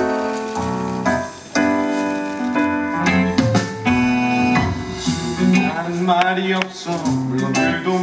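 Instrumental break in a musical-theatre song: a keyboard plays sustained chords that change every half second or so, with some notes bending in pitch in the second half.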